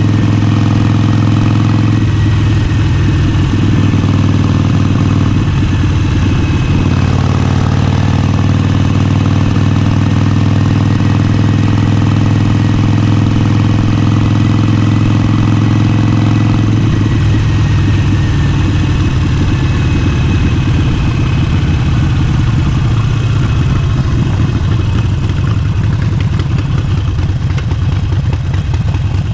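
Harley-Davidson Forty-Eight's air-cooled V-twin engine running at a steady pitch, loud and continuous, with the sound turning rougher and more uneven about two seconds in.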